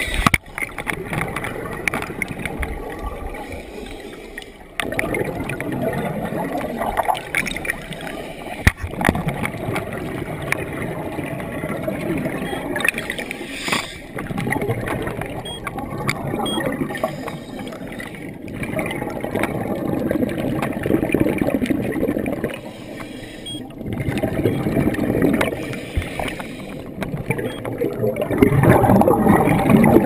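Underwater rushing and bubbling of turbulent water in a strong current, muffled through the camera's underwater housing. It swells every few seconds with scuba divers' exhaled bubbles, and a few sharp knocks come through.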